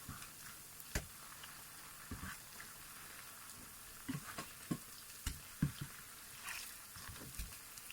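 Battered sweet potato fritters frying in hot oil: a steady soft sizzle, with scattered light clicks and knocks.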